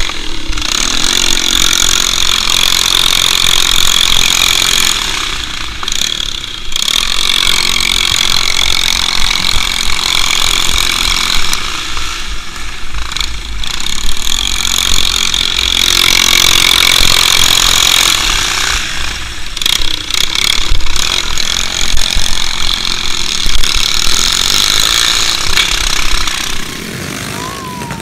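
A minibike's small single-cylinder engine runs hard close to the microphone, easing off and picking up again several times through the turns. Wind rumbles on the microphone at speed.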